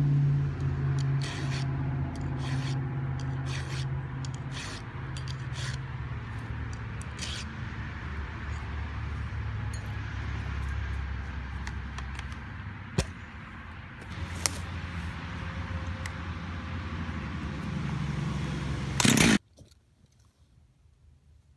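An engine runs steadily, with scraping and scattered clicks over it. About nineteen seconds in it ends in a brief loud burst and cuts off abruptly.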